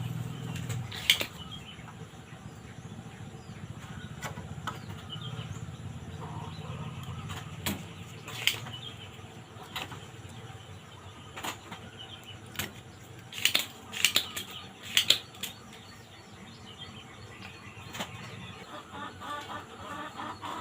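Scattered sharp clicks and taps of hand tools on a TV circuit board while a transistor is being desoldered and removed, with a quick cluster of louder clicks past the middle.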